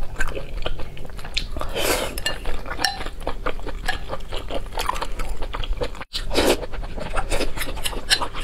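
Close-miked chewing of spicy instant noodles, with metal chopsticks clicking and scraping in a glass bowl. There are two louder wet swells, about two seconds in and just after six seconds, and a momentary break in the sound just after six seconds.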